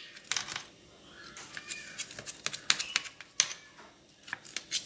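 A knife cutting a baked semolina cake (basbousa) in its metal pan, giving irregular light taps and clicks as the blade meets the pan.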